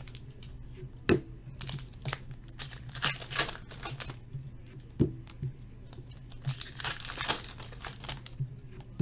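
Foil trading-card pack wrappers being torn open and crinkled by hand, in short irregular rips and rustles, with two sharp knocks about a second in and about five seconds in.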